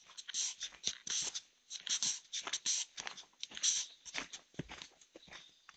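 Footsteps crunching on a forest trail of dry leaves, twigs and grit, at an uneven walking pace of roughly two steps a second.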